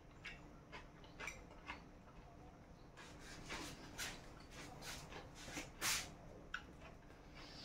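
Quiet eating sounds: chewing a mouthful of cucumber-and-tomato salad with mayonnaise, with scattered soft clicks from a fork and plate.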